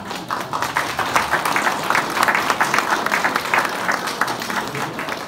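Audience applauding, building up after the start and thinning out toward the end.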